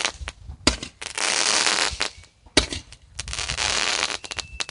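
Consumer fireworks going off: a sharp pop followed by about a second of dense crackling, repeating roughly every two seconds, with a smaller pop near the end.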